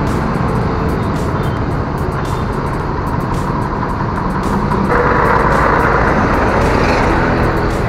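Road traffic noise heard from a scooter in slow, dense city traffic, with a bus close ahead. It gets louder about five seconds in as the scooter passes close alongside the bus.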